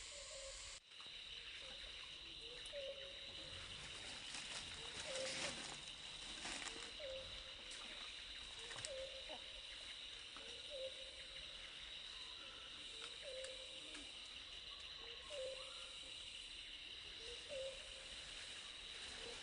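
Forest ambience: a steady high-pitched insect drone with a short low call repeating about every two seconds, and a few brief rustles.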